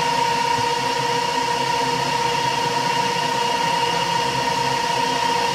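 Metal lathe running with a steady whine while a stubby drill in the tailstock chuck starts a hole in a small metal bush turning in the collet chuck.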